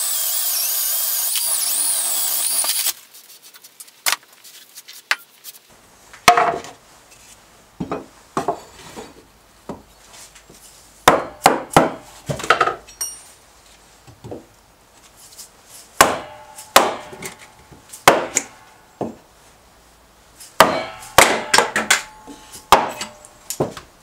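Electric drill boring a hole into a wooden workbench top, cutting off about three seconds in. Then a series of sharp knocks in irregular clusters as a mallet strikes a forged iron holdfast, driving it down in the bench hole to clamp a block of wood.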